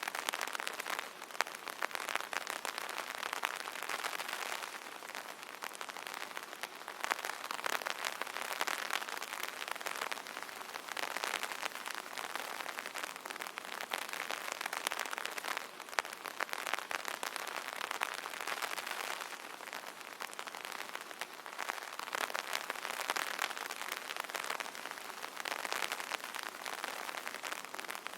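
Rain falling on an umbrella: a dense, even patter of countless drops striking the canopy. It swells and eases a little every few seconds.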